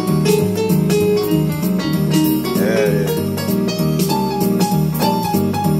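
Digital keyboard played with a piano sound, both hands striking chords in a steady rhythm.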